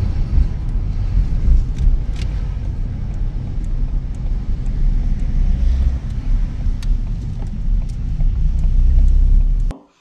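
Steady low rumble of a car driving, road and engine noise heard from inside, which cuts off abruptly near the end.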